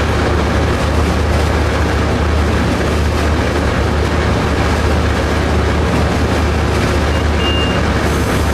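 Steady running noise inside the cab of a Coaster commuter train's diesel locomotive at speed: a low engine drone under the rush of wheels on rail. A short high tone sounds briefly near the end.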